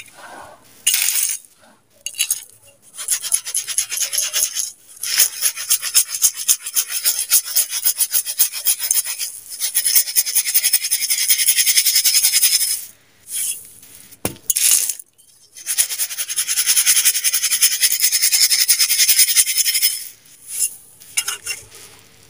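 Dry, crumbled sand-cement grit rattling and sliding in a stainless steel bowl as it is handled, a dense gritty rattle in two long stretches with a pause and a sharp knock in the middle.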